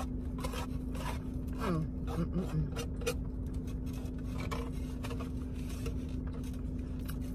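Eating noises, scattered clicks and rustles of chewing and handling food, over a steady low hum.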